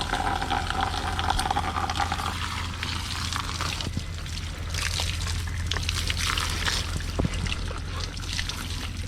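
Water running steadily from a shower head.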